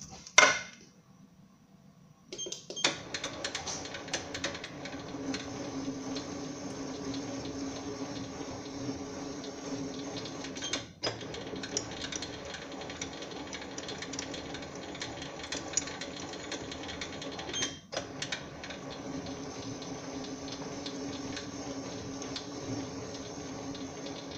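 SIEG SC4 mini lathe running under power with a steady hum from its motor and gear train, over fine ticking, as the threading tool takes a light pass on an M10 × 1.5 thread. It starts about two seconds in after a click, and drops out for a moment twice, near the middle and again about three quarters through.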